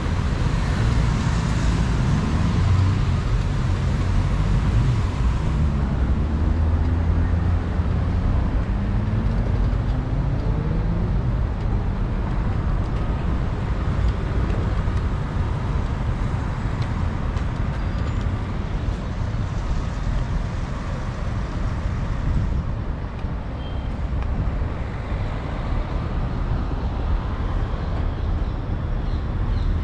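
City road traffic: a steady rumble of cars and other motor vehicles going past, with one engine rising in pitch as it speeds up about a third of the way in.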